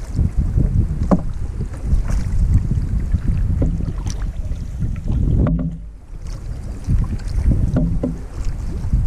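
Canoe paddles stroking through lake water, each stroke splashing and dripping beside the hull, over a low rumble of wind on the microphone.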